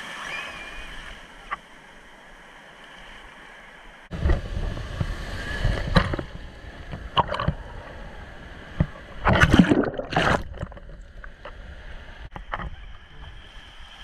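Surf washing in the shallows, then from about four seconds in water sloshing and splashing right against the microphone at the waterline, in irregular gushes with the loudest splashes around ten seconds.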